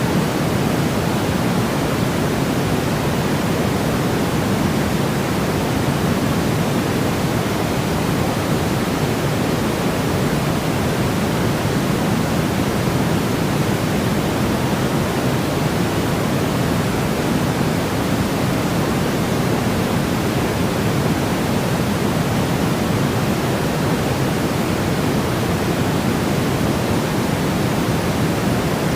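Steady baby-sleep white noise: an even, unchanging hiss with no rhythm or breaks, heavier in the low end, closer to pink noise than pure white noise.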